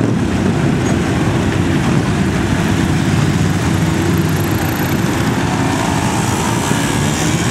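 A group of motorcycles, cruisers and a scooter among them, riding past one after another, their engines running in a steady low drone.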